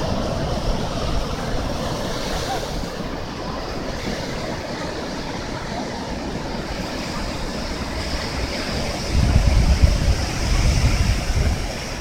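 Ocean surf breaking and washing up a sandy beach, a steady rushing hiss. From about nine seconds in, wind buffets the microphone and adds a low rumble.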